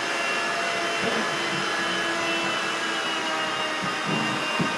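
Handheld cordless vacuum cleaner running steadily on a hardwood floor: a constant motor whine with airflow hiss.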